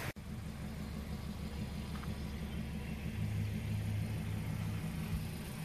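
Steady low mechanical hum of a running motor, with a deeper tone swelling between about three and five seconds in.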